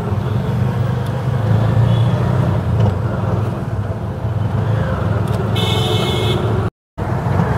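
Auto-rickshaw's gas-fuelled engine running steadily in slow, stop-and-go traffic. A short high beep, like a horn, sounds for about a second near the end, and the sound then drops out for a moment.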